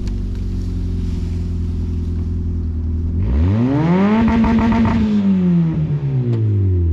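Honda Civic wagon's engine idling, then revving up about three seconds in, held high for a couple of seconds with a rushing hiss of spinning tyres as the car pulls on the tow rope, and falling back to idle near the end.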